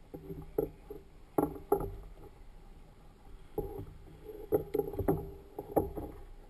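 Irregular knocks and clatters of fishing gear against a plastic kayak as a line snagged on kelp is reeled in and the kelp pulled off by hand.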